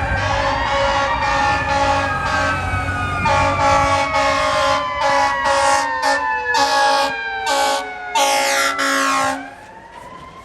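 Fire truck siren in a long, slowly falling wail, joined by the truck's air horn in a string of short blasts from about three seconds in and one longer blast near the end. The horn and siren drop away in the last second.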